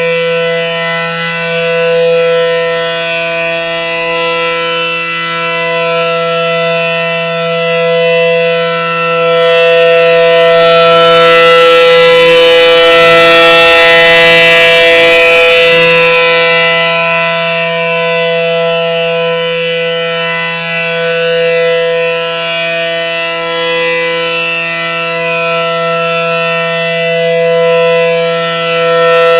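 ACA Allertor 125 rotating outdoor warning siren sounding a steady, unchanging tone at full pitch. It swells to its loudest around the middle as the rotating horn sweeps toward the listener, then fades back.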